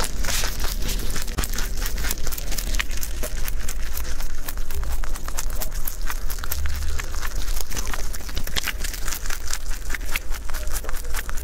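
Rabbit chewing celery leaves close to a clip-on microphone: rapid, continuous crisp crunching and crackling.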